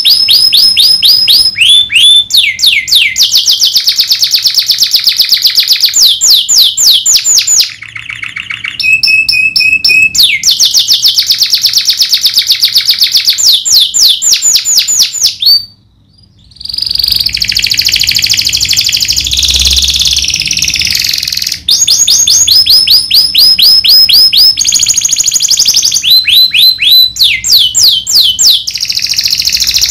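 Domestic canary singing loudly in long rolling trills of very fast repeated notes and falling sweeps, with a brief pause about halfway through.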